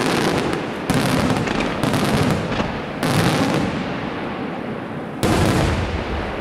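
Aerial firework shells bursting overhead: a loud bang about every second for the first three seconds, a lull, then another about five seconds in, each dying away in a rumble.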